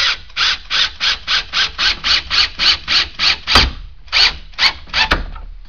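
Cordless drill driving a 3-inch wood screw through the chair arm into the back, in short repeated bursts about three a second, that stop about five seconds in once the screw is home.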